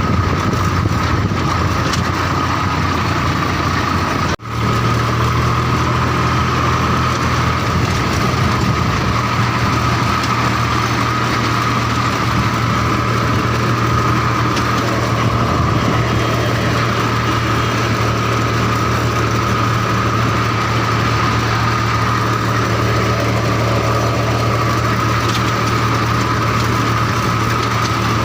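Swaraj tractor's diesel engine running steadily while the tractor is driven, with a sudden brief break about four seconds in.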